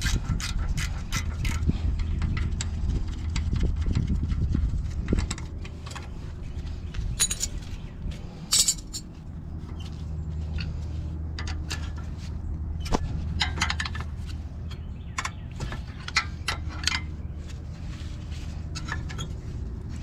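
A ratchet clicking on a brake caliper bolt stops about a second and a half in. Scattered metallic clinks and knocks follow as the tools and caliper parts are handled. A steady low hum runs underneath.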